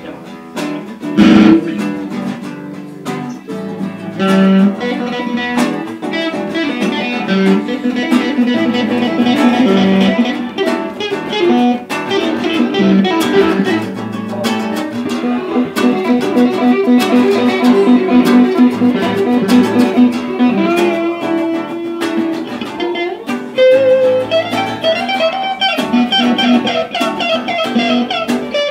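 Electric guitar played through a small combo practice amp together with an acoustic guitar, a continuous improvised jam of plucked single-note lines over chords.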